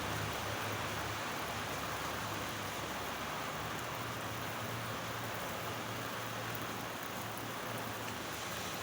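Steady rain falling, an even hiss of many drops, with a low hum underneath.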